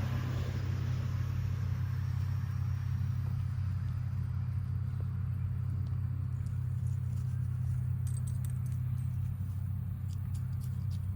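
Steady low drone of a vehicle running, with a few faint clicks or jingles near the end.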